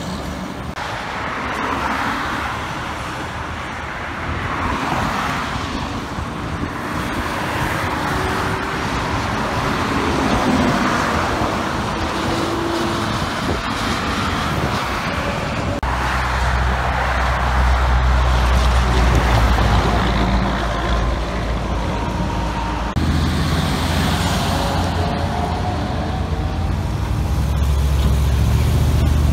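Road traffic with heavy trucks passing through an intersection: tyre and engine noise swells and fades as several vehicles go by. From about halfway through, the low rumble of a diesel truck engine dominates.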